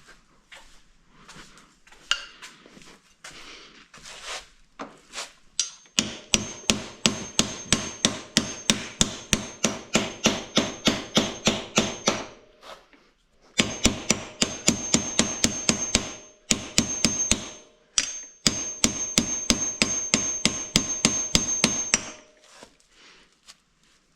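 Hammer striking steel over and over to drive out a seized bolt that will not budge: a few light knocks first, then about six seconds in, runs of rapid hard blows, about three to four a second, each with a high metallic ring, broken by short pauses.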